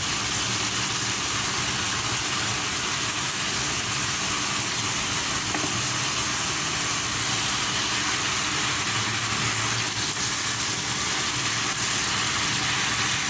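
Sweet potato leaves stir-frying with anchovies and spices in a pan, a steady sizzle.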